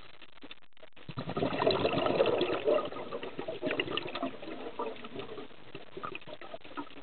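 Scuba diver's exhaled breath bubbling out of the regulator underwater: a surge of bubbles about a second in, loudest for a couple of seconds, then trailing off into scattered bubbly pops.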